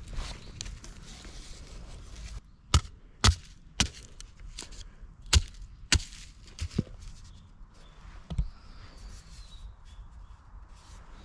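Wood being chopped: about seven sharp, irregularly spaced knocks, half a second to a second and a half apart.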